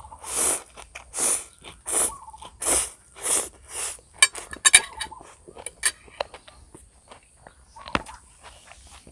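Close-up chewing of food, six loud noisy chews at an even pace of a little under two a second, followed by a run of sharp mouth clicks and smacks.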